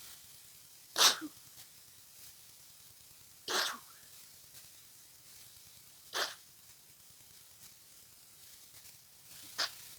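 A person sneezing four times, two to three seconds apart, the first sneeze the loudest: repeated sneezing from a congested head cold.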